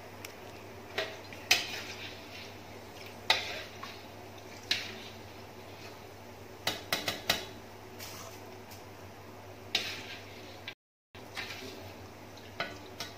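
A stainless-steel skimmer knocking and scraping against a wok and a metal colander as fried shredded crab sticks are scooped out of the oil and tipped out. Sharp clinks come every second or two, with a quick run of them about seven seconds in, over a steady low hum.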